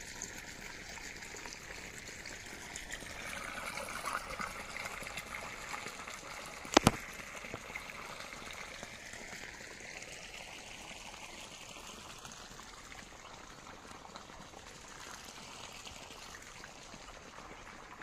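Borewell irrigation water trickling and running steadily from a pipe into field channels. One sharp click about seven seconds in.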